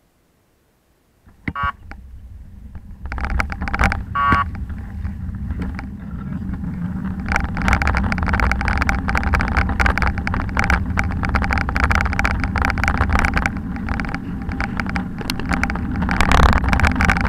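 Wind buffeting a bicycle-mounted action camera's microphone, with clicks and knocks from the camera and bike rattling over a brick-paved cycle path; it gets louder from about seven seconds in as the bike picks up speed. Earlier, two brief ringing trills sound, about two and a half seconds apart.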